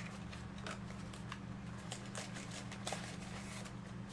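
Light clicks and rustles of trading card packs and cards being handled and opened, over a steady low hum.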